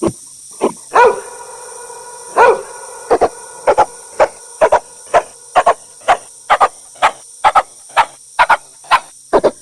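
A dog barking over and over: short sharp barks at about two a second, many in quick pairs, with two longer, drawn-out barks near the start.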